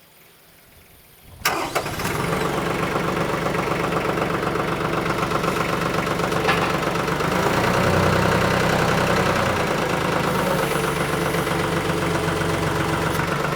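TYM 2515H compact tractor's diesel engine running, coming in abruptly about a second and a half in, then working under load as the front loader lifts a heavy tote of water on pallet forks. Its low note strengthens and deepens for a couple of seconds around the middle, as the load of about 1,726 pounds proves too much for the tractor in two-wheel drive.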